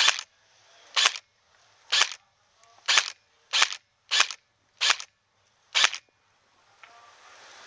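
Magpul PTS RM4 airsoft rifle fired in single shots, eight sharp cracks. They come about a second apart at first and quicken to about two shots a second, then stop about six seconds in.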